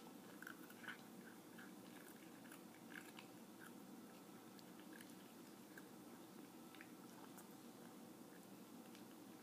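A cat crunching dry kibble from a bowl: faint, irregular crunches, closer together in the first few seconds and sparser after.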